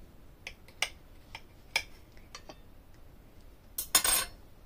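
Metal knife and fork cutting through a stack of pancakes, clicking and scraping against the plate several times, with a louder clink of cutlery about four seconds in.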